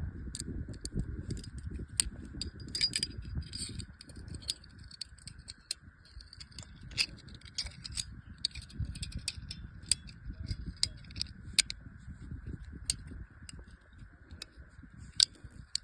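Zigana pistol's metal parts being handled, with irregular sharp clicks, clacks and brief jingling rattles over a low rumble.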